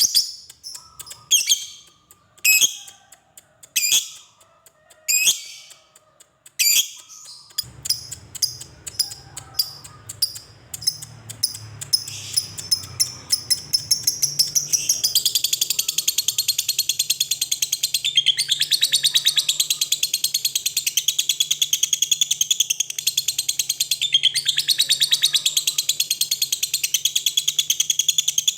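A lovebird calling: a few separate shrill calls about a second apart, then notes coming faster and running into a long, unbroken, rapid chattering trill from about halfway in, the 'ngekek panjang' song. A faint low hum sits underneath from about a quarter of the way in.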